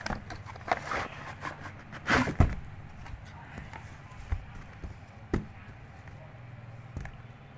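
Irregular handling noises of packaging being unpacked: rustles, clicks and knocks, the loudest a cluster of thumps about two seconds in.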